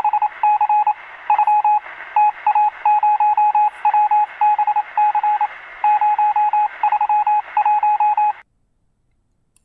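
Radio-transmission sound effect: rapid runs of short electronic beeps, all at one pitch, over static hiss, with the thin sound of a radio channel. It cuts off suddenly near the end.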